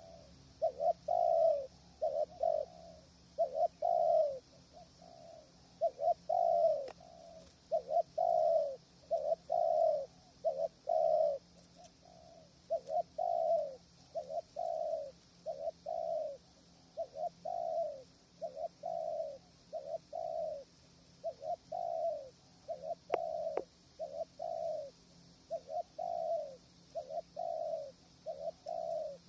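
Spotted dove cooing: a continuous series of short, low coo notes at about one a second.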